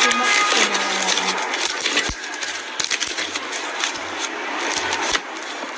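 Thick slime being squeezed and pressed by hand, giving a dense crackling and popping with a few sharper clicks.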